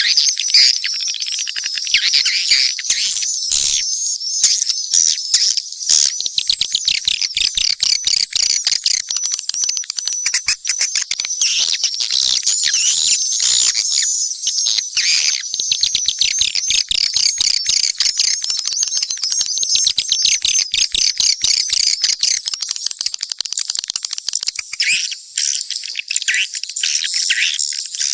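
Mixed swiftlet calls: a dense, unbroken chorus of high chirps and rapid buzzy, ticking trills from many birds at once, the kind of track played to lure swiftlets into a nesting house.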